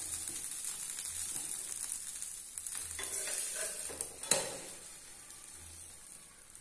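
A sweet dosa sizzling in oil on a flat non-stick pan, the hiss slowly fading. A steel spatula scrapes and taps on the pan a few times, loudest about four seconds in.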